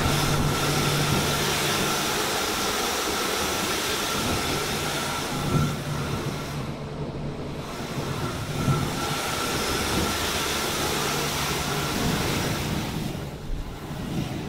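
Tammermatic T700 rollover car wash heard from inside the car: water spraying over the glass and bodywork and the rotating brushes sweeping past, over a steady machine hum with a faint whine. It dips briefly about halfway through, and a couple of dull thumps come a few seconds apart.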